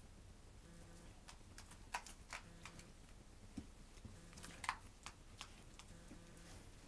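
A corgi chewing and mouthing a plush starfish toy: faint, scattered clicks and soft crunches, the loudest about two seconds in and again near five seconds. No squeak is heard, since the toy's squeaker no longer works.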